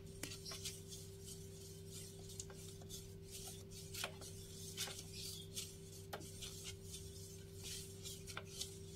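Wooden spoon stirring a thin rice-flour and jelly-powder batter in an aluminium pot: faint, irregular scrapes and swishes of the spoon against the metal.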